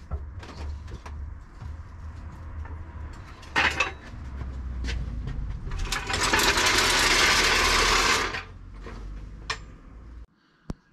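A jack being let down under a Citroen Relay van, its rear settling onto newly fitted air suspension bellows. There is a low steady rumble with scattered clicks, a short loud burst about three and a half seconds in, and a loud hiss lasting about two seconds near the middle.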